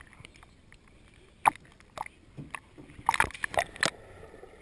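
Pool water sloshing and gurgling, heard muffled through a GoPro's sealed waterproof housing at the waterline, with sharp knocks: single ones at about a second and a half and two seconds in, then a quick cluster about three seconds in.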